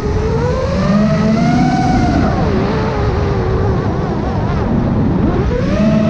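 Custom FPV quadcopter's brushless motors whining, their pitch rising and falling with the throttle: it climbs over the first two seconds, drops and wavers, then rises again near the end.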